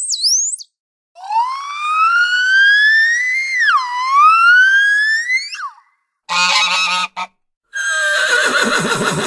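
Bottlenose dolphin whistle: a quick high rising chirp, then a long whistle played back at a quarter of its speed that glides steadily upward, dips once and rises again. After a brief call, a horse whinnies from about 8 s in, its pitch falling with a quaver.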